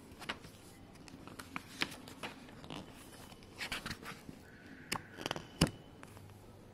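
Paper activity books being handled: scattered rustles and light taps, with the sharpest tap about five and a half seconds in.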